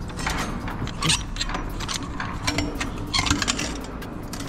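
Steel dock ramp worked by hand, its handle and plate clanking and rattling metal on metal, with louder clanks about a second in and again near three seconds. A steady low rumble runs underneath.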